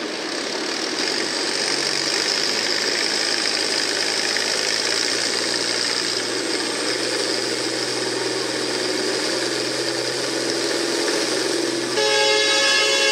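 International Harvester farm stock tractor's diesel engine running hard under load, pulling a weight-transfer sled. About twelve seconds in, a horn starts blaring over the engine, louder than it.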